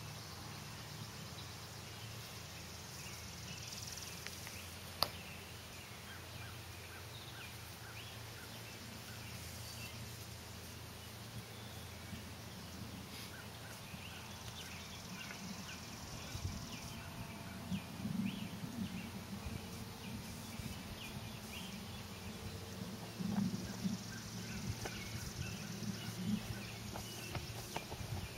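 Quiet outdoor ambience: a low steady hum with faint, repeated short chirps in the background. There is a single sharp click about five seconds in, and a few soft low thumps in the second half.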